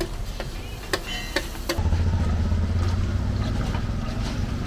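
A few sharp clicks, then from about two seconds in a motor vehicle's engine rumbling close by: street traffic.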